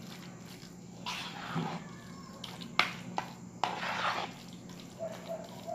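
Spoon stirring a wet filling of shredded chicken, cream cheese and cream in a metal bowl: squelching, with a few sharp clicks of the spoon against the bowl.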